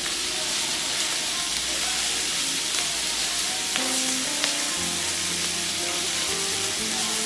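Chopped pork sisig sizzling and frying on a hot metal sizzling plate, a steady hiss, with a spoon stirring and scraping through it.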